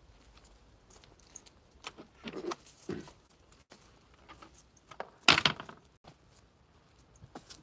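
Light jangling clinks and rustling from someone walking a dirt path with a phone in hand, coming irregularly, with a louder rustle about five seconds in.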